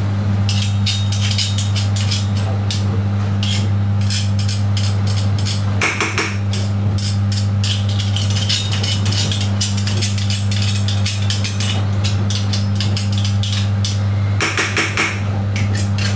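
Metal kitchen utensils scraping and clicking against a frying pan as vegetables are stirred, many quick irregular clicks over a steady low hum.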